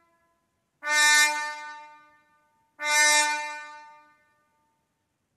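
Two sampled trumpet notes played back by notation software, about two seconds apart, each starting sharply and dying away over about a second and a half.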